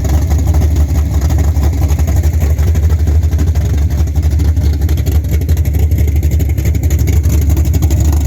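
Chevrolet Nova's 427 big-block V8 with a solid roller camshaft running steadily, loud and choppy.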